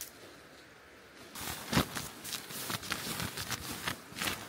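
Irregular rustling and crinkling of synthetic fabric and an inflated air mat being handled, starting about a second and a half in, with one sharp, louder crinkle soon after.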